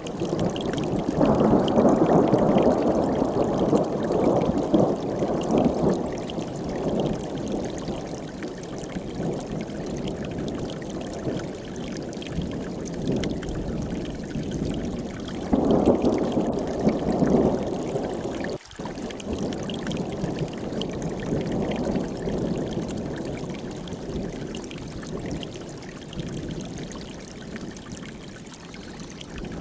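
Mountain stream rushing and splashing over rocks in a steady wash of water noise, swelling louder a second or so in and again about halfway through, with a momentary dropout just after.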